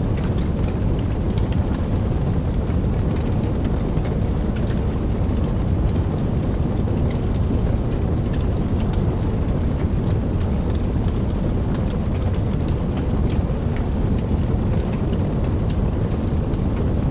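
Wood campfire burning: a steady low rush of flames with frequent small, sharp crackles scattered throughout.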